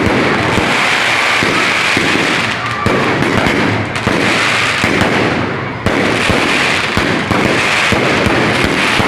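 Fireworks going off in a continuous crackling barrage, with many sharp bangs and pops throughout.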